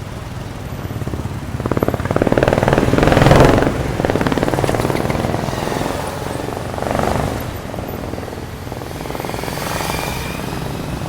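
Road traffic: motor vehicles passing, over a steady low rumble. The loudest pass, about two to three and a half seconds in, is an engine with a fast pulsing beat that swells and fades. Smaller passes follow around seven and ten seconds in.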